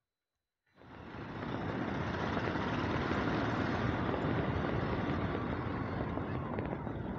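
Motorcycle on the move, its engine running under a dense rush of riding noise with wind on the microphone. It starts abruptly just under a second in, grows louder over about a second, then holds steady.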